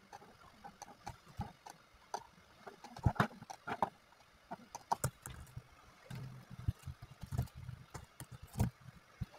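Irregular light clicks and taps of a computer keyboard and mouse, with a denser run of keystrokes a few seconds in.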